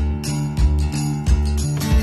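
Background music with a steady beat: a low drum hit about every two-thirds of a second under sustained chords.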